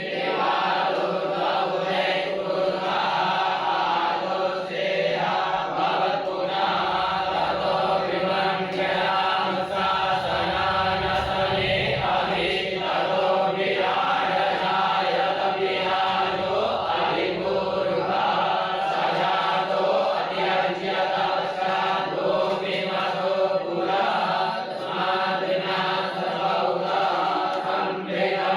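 A group of voices chanting Hindu mantras together in a steady, unbroken recitation.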